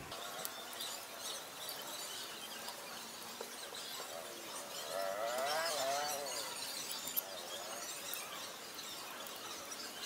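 Birds chirping, with a louder warbling call about halfway through, and a few light clinks as steel bolts and nuts are handled.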